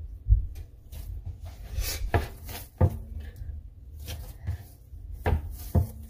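Sticky dough being kneaded by hand on a wooden chopping board: irregular dull thumps as the dough is pressed and dropped onto the board, with the soft rub and squish of hands working it.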